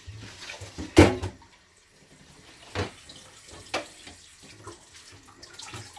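Kitchen-sink sounds: water running at the tap while a bowl is handled, with one sharp knock about a second in, the loudest sound, and two lighter clacks after it.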